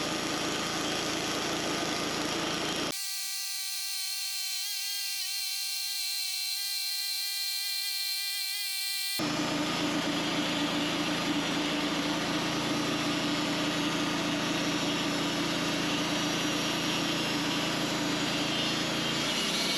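Portable sawmill running as it saws through an oak log, its engine and blade making a steady drone. For about six seconds from roughly three seconds in, the low rumble cuts out and a high whine with several tones is heard instead, before the steady running returns.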